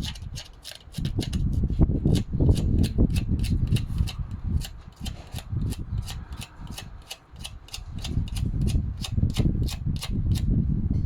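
Rapid back-and-forth scrubbing by hand on the metal of a BMW drive shaft, about four strokes a second, cleaning off rust and road grime where the ABS reluctor ring seats. The strokes stop about a second before the end.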